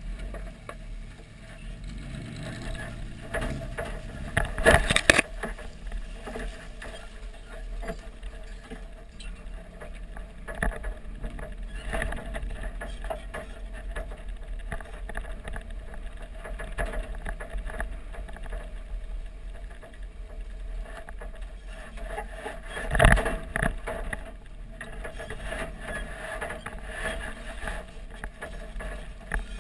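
Toyota Tacoma pickup, loaded with a quad bike, rolling slowly over a rough dirt track, heard from a camera mounted low on its body: a steady rumble with scattered knocks and rattles. Two louder thumps come about five seconds in and again past the twenty-second mark as the loaded truck goes over bumps.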